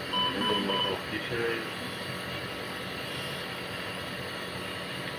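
Three short, evenly spaced electronic beeps in the first second, then a steady hiss of background room noise. A voice murmurs briefly near the start.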